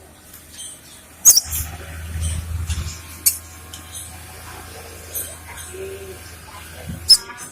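Cinereous tit (gelatik batu) giving short, sharp, high-pitched calls: one about a second in, another around three seconds, and a quick run near the end, over a low hum.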